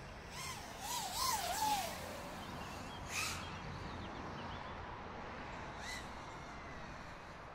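FPV quadcopter's brushless motors (GepRC SpeedX2 2107.5) spinning 5-inch tri-blade props, whining with a pitch that swings up and down with the throttle. It is loudest in a rushing punch about a second in, with shorter surges around three and six seconds in.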